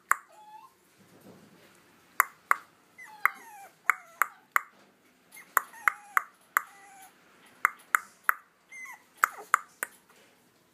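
Sharp finger snaps, about twenty in irregular singles and quick pairs, with a toy poodle puppy giving short, faint whimpers between them.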